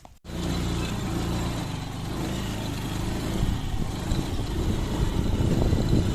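A motor vehicle engine running steadily with a low rumble and noise, starting suddenly a moment in.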